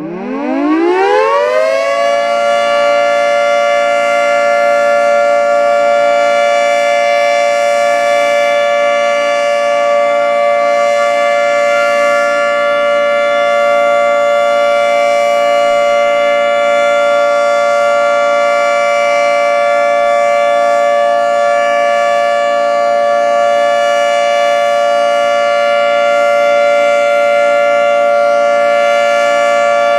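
Federal Signal 2T22 dual-tone omnidirectional warning siren starting up, its pitch rising over about two seconds, then holding a loud, steady two-note chord: the steady Alert signal.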